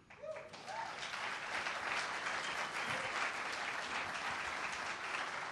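Audience applauding. The clapping builds up within the first second, holds steady, and eases off a little near the end.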